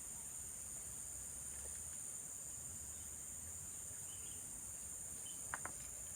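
Steady, high-pitched chorus of insects, with two short sharp clicks close together near the end.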